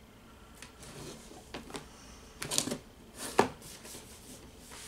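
A long cardboard toy box being handled and turned around on a table: scraping and rustling of cardboard with several short knocks, the loudest about three and a half seconds in.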